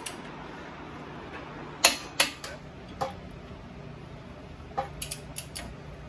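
Sharp metallic clicks and clacks of a wrench and socket on the stud nuts of a Ford Super Duty front hub bearing assembly as they are torqued: a pair about two seconds in, one more a second later, then a quick run of four near the end. A steady low hum runs beneath.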